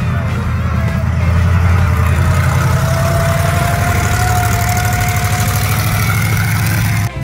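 Engine of a lifted buggy on huge lugged tractor-style tyres, running with a steady low rumble as it drives slowly past, with a thin whine that rises a little in pitch through the middle. The sound cuts off suddenly near the end.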